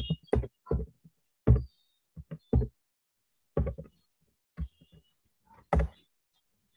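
A run of irregular knocks and thumps, about a dozen short hits spread unevenly, the loudest about one and a half seconds in.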